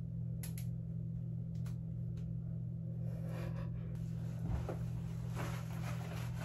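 Steady low hum with a few faint clicks and light rustling.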